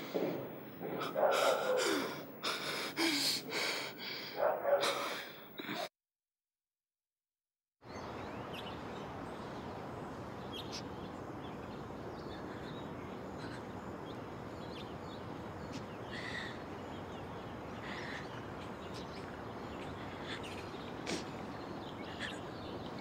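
A person sobbing with heavy, gasping breaths for several seconds, cut off abruptly. After a short gap of silence comes steady outdoor ambience with a few faint bird chirps.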